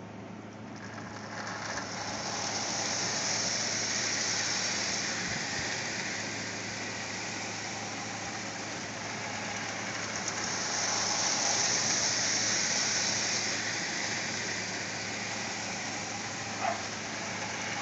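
A 1975 Sears toy electric train runs around its loop of metal track: the motor whirs and the wheels rattle on the rails over a steady low hum. The sound swells twice, at about three seconds and again at about twelve, as the train comes round near, and a single click comes near the end.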